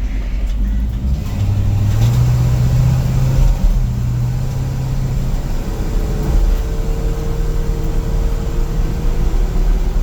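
1955 Chevrolet 3100 pickup driving under way: the engine note rises about a second in, holds, then eases back around five seconds in.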